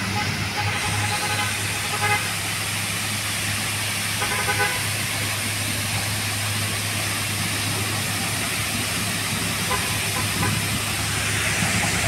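Steady rushing of a wide waterfall as water pours down a steep rock face.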